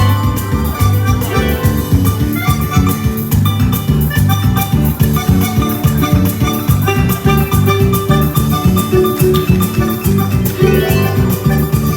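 Paraguayan instrumental music: bright plucked-string melody and guitar over a steady bass and drum beat.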